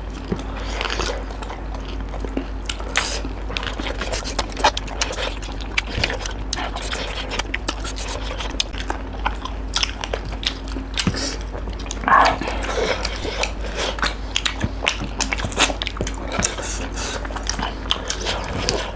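People eating with their mouths close to the microphone: many short wet smacks, bites and chews of curry, rice and fried chicken, with a brief vocal sound about twelve seconds in, over a steady low hum.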